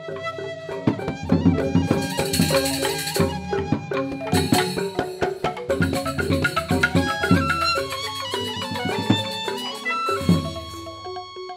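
Joged bumbung gamelan music: bamboo xylophones played in fast interlocking patterns over drumming.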